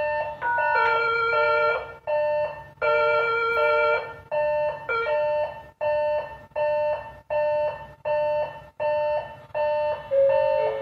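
Station platform train-approach chime: an electronic signal of clear tones. For the first few seconds it plays a short run of varied notes, then it settles into a two-note figure repeating about every 0.7 seconds, warning that a train is arriving.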